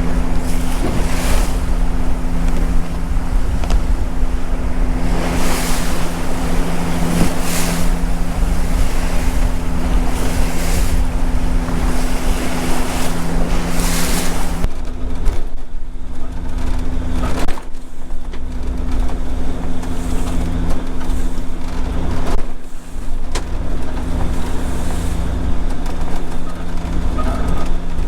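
Motor yacht's engine running steadily under way, with water and wind rushing past in several swells during the first half as the boat works through waves.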